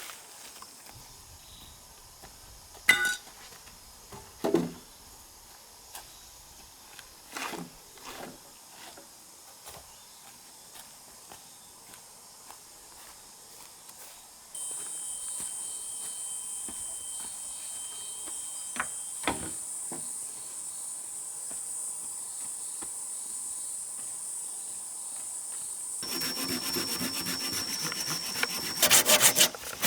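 Scattered knocks and taps of wood being handled. A steady high hiss comes in abruptly about halfway through. Near the end, a saw starts cutting through wood in quick rhythmic strokes that get louder over the last second.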